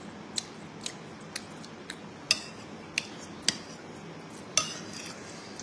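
Metal spoons clinking against a ceramic bowl while food is stirred and scooped: about eight sharp clinks at uneven intervals, one of them longer about four and a half seconds in.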